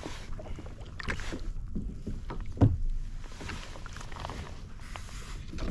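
Clunks and knocks of gear being handled aboard a fishing kayak, with one louder knock about two and a half seconds in.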